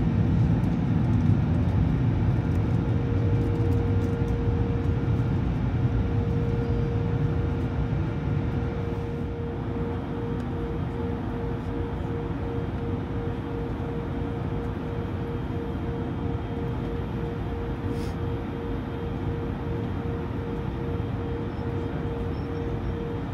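Cabin noise inside an Airbus A220-100 taxiing, its Pratt & Whitney PW1500G geared turbofans running at low taxi power: a steady low rumble with a steady whine that starts to pulse about ten seconds in, the whole easing slightly in level.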